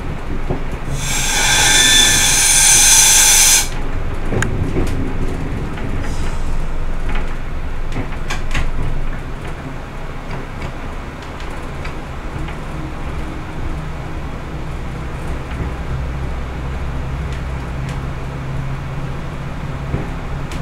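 Class 122 diesel railcar running, with a steady low diesel drone and scattered clicks and knocks from the wheels on the track. About a second in, a loud hiss of air lasts some two and a half seconds, and the running sound drops a little after about nine seconds.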